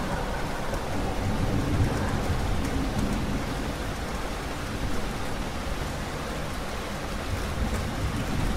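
Steady rain falling, with a continuous low rumble of thunder underneath.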